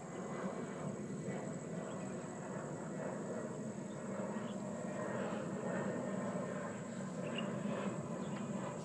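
Steady outdoor background rumble with a constant high-pitched whine above it; no distinct event stands out.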